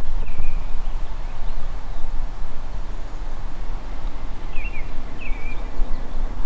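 Steady low rumble of wind on the microphone, with a small bird giving short chirps once near the start and twice about five seconds in.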